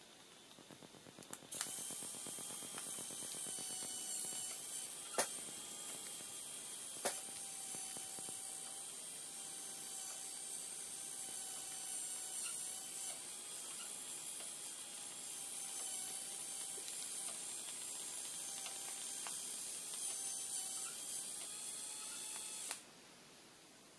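Small electric motor and gear train in a 1/16 scale model steam road tractor running steadily, with a fast fine ticking and a high whine; it switches on about a second and a half in and cuts off suddenly near the end. A couple of sharp clicks stand out along the way.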